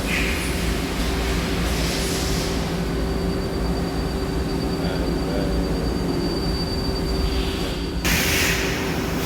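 Nakamura-Tome AS-200Y CNC turning center running with a steady mechanical hum and hiss. A faint high whine sounds in the middle, and about two-thirds of the way in the hiss suddenly grows louder.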